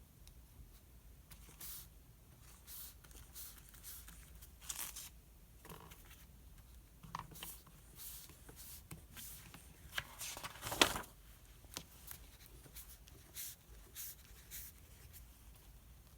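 Pen scratching on paper and light paper rustling in short, scattered strokes. About ten seconds in comes a louder, longer rustle of a page being turned.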